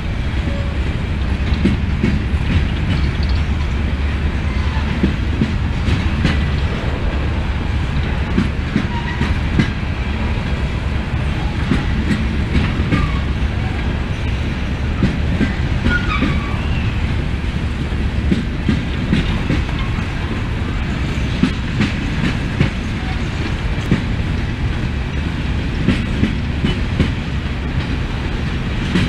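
CSX freight train's coal hopper cars rolling past at close range. A steady heavy rumble carries many sharp clicks and knocks from the wheels over the rail.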